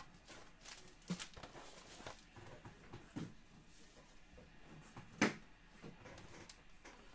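Faint handling of a trading-card box and its packaging: scattered light taps and clicks, the loudest about five seconds in.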